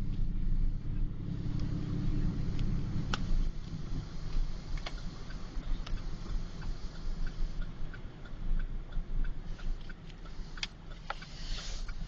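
Car engine running inside the cabin, its rumble dropping about three seconds in as the car slows, with a few sharp knocks. From about halfway through, turn-signal clicking about twice a second.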